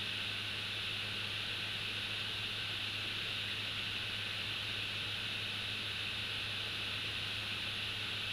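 Steady hiss with a low electrical hum, the constant noise of a nest camera's microphone feed, with no distinct event.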